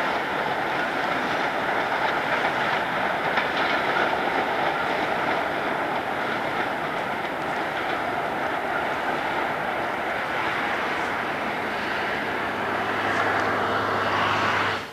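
Passenger train coaches rolling past on the rails, a steady loud rolling noise of wheels on track that cuts off suddenly at the very end.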